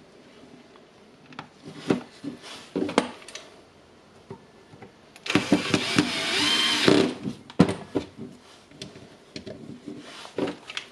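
Knocks and clicks of the plastic battery housing being handled and fitted, then a cordless drill driver runs for about two seconds about halfway through, driving a screw into the battery's plastic housing. Its whine rises and then falls and ends in a sharp click.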